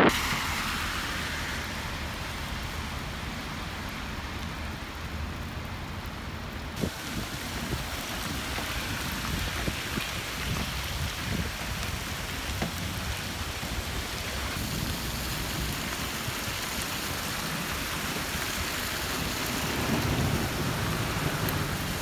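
Heavy rain falling on pavement and surfaces: a steady hiss with scattered drop ticks, shifting in tone about seven and fifteen seconds in.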